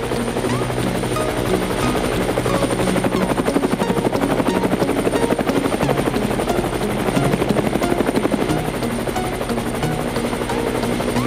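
A fast, even chopping whir like helicopter blades, steady throughout, over background music.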